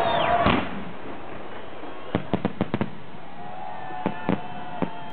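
Festival fireworks salute: it opens with a loud sound sliding down in pitch. About two seconds in, a quick run of about six sharp bursts crackles overhead, then three more bangs come near the end.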